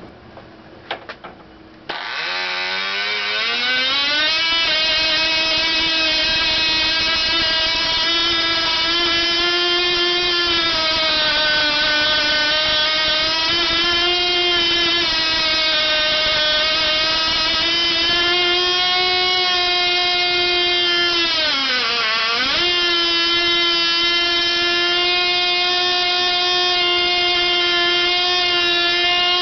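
Picco 12 Turbo ABC three-port glow engine turning a propeller, catching about two seconds in after a few clicks and revving up within a couple of seconds to a steady high-pitched whine at high rpm, its pitch wandering slightly. About three-quarters of the way through the revs dip sharply and then recover.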